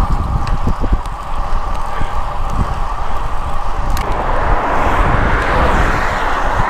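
Wind rushing over the microphone of a handlebar camera on a moving bicycle, with steady road rumble and a few faint clicks. About four seconds in it changes to a broader, hissier rush of road and passing car traffic.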